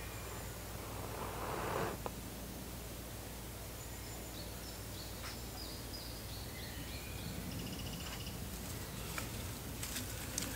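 Outdoor woodland ambience: small birds singing in short repeated high phrases over a steady low background noise, with a rustling swell about a second in and a few sharp clicks or knocks scattered through.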